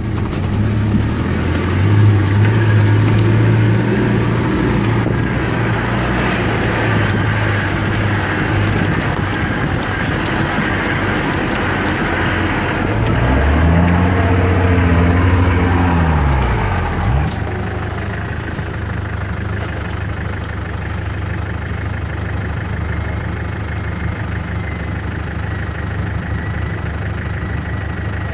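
Land Rover Defender 130's engine running as it drives a rough dirt track, heard from inside the cab. About halfway through, an engine revs up and back down, then settles to a steady idle.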